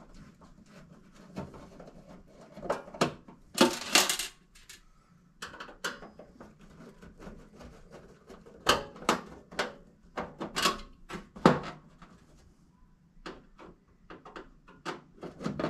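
Screws being backed out of a stainless steel range hood panel with a hand screwdriver: scattered sharp metallic clicks and clinks, with the strongest run of clicks around nine to twelve seconds in.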